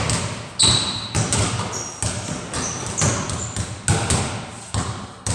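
Basketballs bouncing on a hard floor in a large echoing concrete-block room: irregular thuds, about two a second, each ringing briefly off the walls, with a few short high sneaker squeaks.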